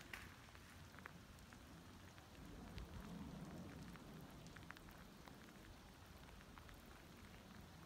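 Faint light rain: soft, irregular ticks of drops over a quiet hiss.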